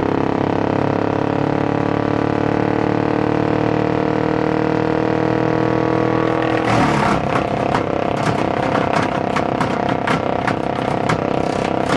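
DR wood chipper's 18 hp Briggs & Stratton engine running steadily. About halfway through, wood is fed in and the machine starts chipping, with a rapid run of cracks and snaps over the engine.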